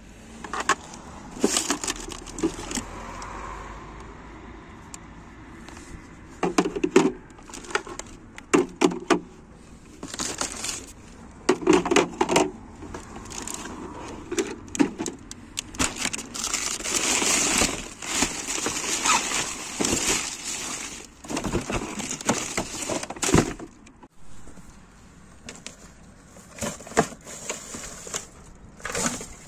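Junk being handled and moved about in a dumpster: irregular knocks and clatters of hard plastic and cardboard, with plastic bags rustling.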